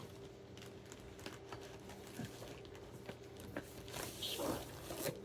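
Faint rustling and scattered light clicks of a drone's box and packaging being handled and opened, over a steady faint hum.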